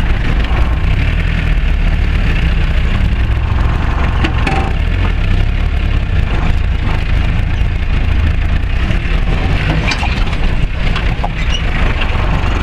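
Old Land Rover Series engine running, heard from inside the cab, as the truck drives over rough ground. The body and loose fittings rattle and clunk throughout, with sharper knocks about four seconds in and again around ten to eleven seconds.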